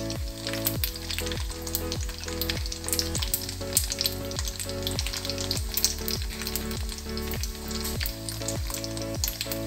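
Coated macaroni deep-frying in hot vegetable oil, with a dense, continuous sizzle and crackle of many small bubbles, just after the pieces went into the oil. Background music with a steady beat runs underneath.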